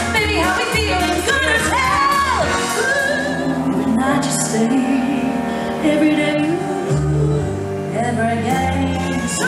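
A woman singing a cabaret song into a microphone with musical accompaniment and a steady bass line, her held notes wavering with vibrato.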